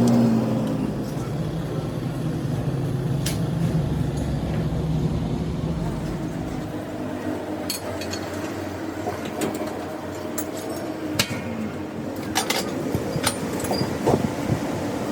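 A machine motor hums steadily, then runs down and stops about six seconds in; after that come scattered metal clinks and knocks, more of them near the end.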